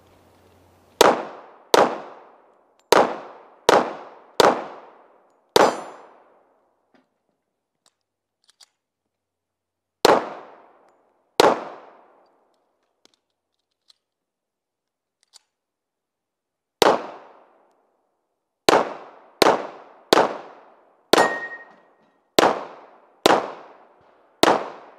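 Pistol shots fired through a USPSA course of fire: a string of six in about five seconds, two more after a pause, then a quick string of nine. Each shot is sharp and trails off over about half a second.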